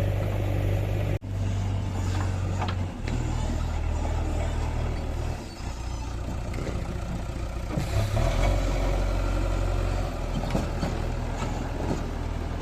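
Diesel engine of a backhoe loader at work, running steadily with its note shifting a few times as the load changes, with scattered light knocks. The sound cuts out sharply for an instant about a second in.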